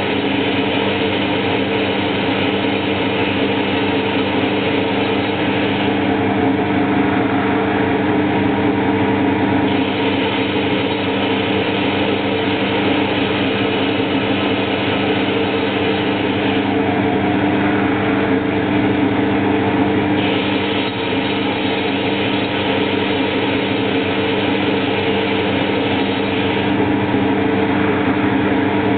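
Homemade CNC lathe running: a steady motor hum holding several fixed tones under a dense mechanical noise. The higher part of the noise shifts every few seconds as the machine changes what it is doing.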